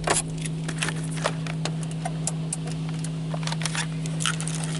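A steady low machinery hum heard from inside a car's cabin in an automatic car wash bay, with scattered sharp clicks and light rattles.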